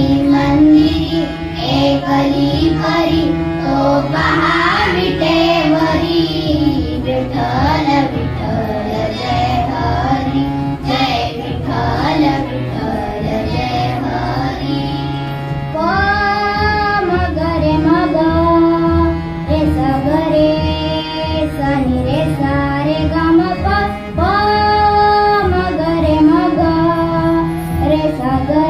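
A group of young children singing a Marathi devotional bhajan in chorus, with harmonium accompaniment and rhythmic hand-clapping. The singing turns to long held notes about halfway through.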